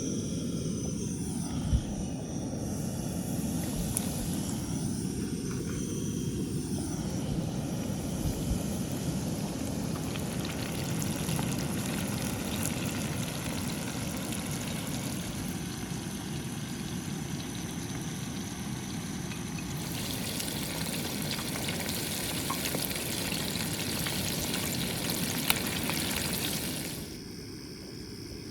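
Floured buffalo rib strips deep-frying in hot oil: a steady sizzle over a low, constant rumble. The sizzle turns brighter and louder about twenty seconds in, then drops off sharply near the end.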